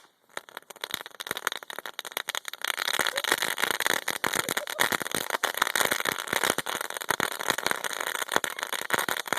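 Crackle-ball fireworks going off in a dense, continuous rattle of small sharp pops, starting about a second in and thickening into a solid crackle.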